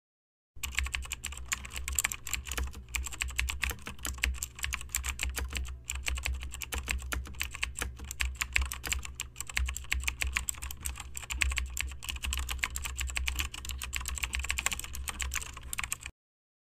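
Fast, continuous typing on a computer keyboard, a dense run of key clicks. It starts about half a second in and stops abruptly shortly before the end.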